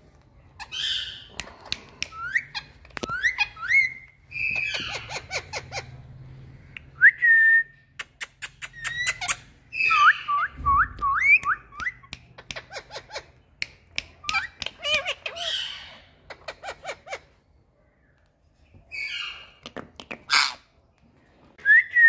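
Indian ringneck parakeet calling: sharp clicks and chirps, harsh screeches and short rising whistles, with a quick run of about eight rising whistle notes near the middle. There is a brief pause about three-quarters of the way through.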